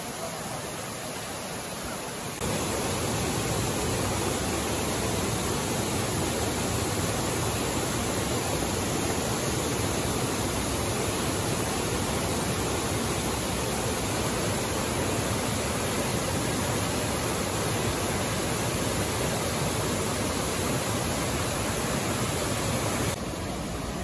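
Steady rush of falling water: a mountain stream pouring over a small rocky cascade. It comes in louder about two seconds in and drops back to a softer stream rush shortly before the end.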